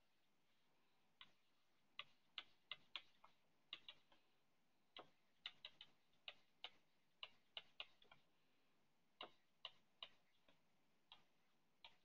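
Stylus tapping and clicking on a tablet's glass screen during handwriting: light, irregular taps that come in small clusters, with short gaps between.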